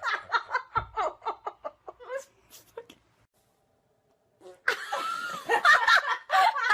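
A person laughing in quick repeated bursts that trail off, then, after a pause of about a second and a half, laughing hard again.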